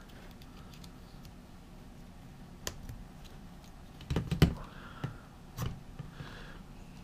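Small clicks and rustles of a strap with a plastic buckle end being handled and threaded through a cord loop, with a louder cluster of clicks about four seconds in.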